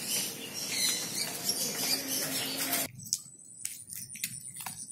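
Outdoor street ambience with birds chirping and a low steady hum. About three seconds in the sound cuts to a quieter lane, where light clicking footsteps of sandals are heard.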